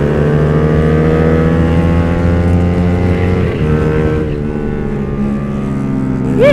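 Yamaha R15's single-cylinder four-stroke engine running hard at high revs, its pitch climbing slowly for about three and a half seconds, then briefly changing as the throttle or gear changes, and running on steady.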